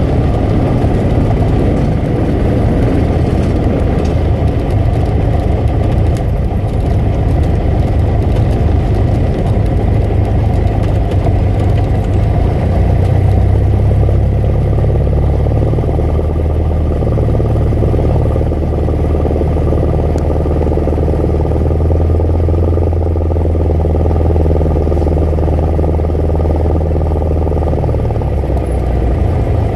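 Single-engine light aircraft's piston engine and propeller running at low power while taxiing, heard from inside the cockpit as a steady low drone.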